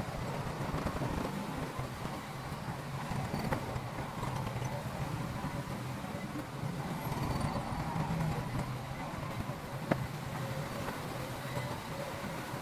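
Diesel engine of heavy earthmoving machinery running steadily with a low rumble, with a single sharp knock near the end.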